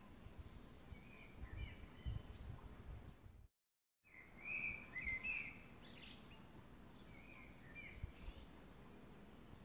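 Faint birds chirping in a few short bursts over a low background hum, with the sound cutting out completely for about half a second near the middle.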